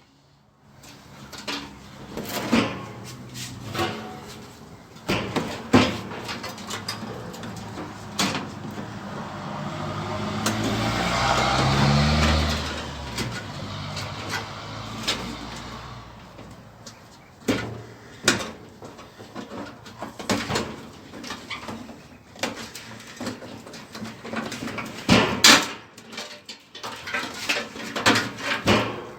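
Scattered clinks and knocks of metal parts and tools being handled while a microwave is taken apart for scrap. Midway, a low engine-like hum swells up and fades away over several seconds.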